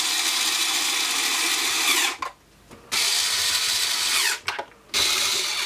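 Cordless electric screwdriver driving case screws into an oscilloscope's plastic housing in three short runs. Its pitch drops as each screw seats, and it is stopped right away to avoid stripping the thread, since the screwdriver has no torque setting.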